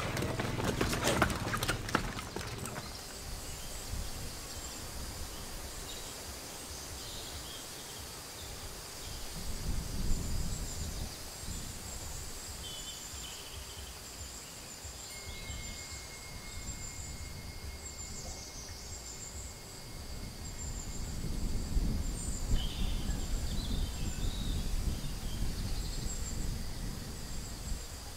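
Rural field ambience: a steady, high-pitched insect drone with scattered bird chirps over it. A clatter of knocks opens it in the first couple of seconds, and low rumbling swells come in about ten seconds in and again through the last third.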